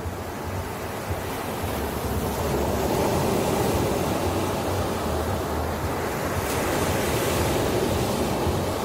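Ocean surf: a wave swells up over a couple of seconds and washes in, with a brighter hiss of foam about two-thirds of the way through before it eases a little.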